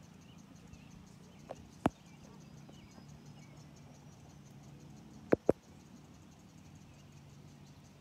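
Insects chirping in a steady, fast, high pulsing rhythm over a faint low hum, broken by three sharp clicks: one about two seconds in and a close pair a little after five seconds.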